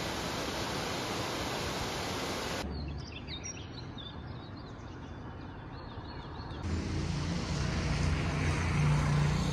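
A steady rushing noise that cuts off suddenly about three seconds in, followed by birds chirping, then from about seven seconds a vehicle engine's steady low hum that grows louder.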